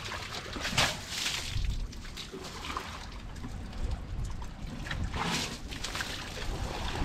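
Asian elephant splashing and spraying muddy water with its trunk, with two louder splashes, about a second in and about five seconds in, and water trickling between them.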